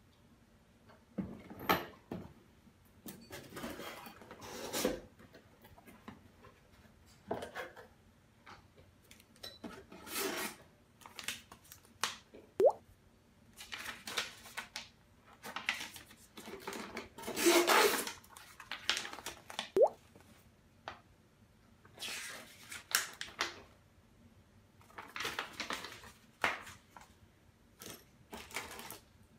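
Unpacking a boxed kitchen faucet by hand: the cardboard box and its flaps, paper leaflets and plastic-bagged parts are rustled, slid and tapped in irregular bursts of a second or two, with short quiet gaps between them.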